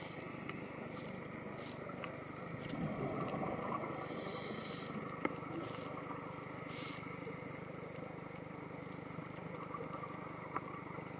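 Underwater sound picked up through a dive camera's housing: a steady muffled hum with a scuba diver's regulator breathing. There is a louder bubbling exhale about three seconds in, brief hisses of inhalation after it, and two faint clicks.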